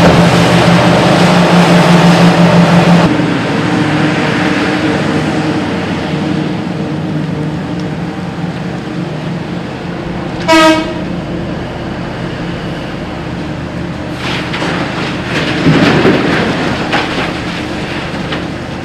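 Hitachi EX8000 mining excavator's engines running under load with a steady drone, louder in the first few seconds. About halfway through comes a single short horn toot, and near the end there is a rattle of rock.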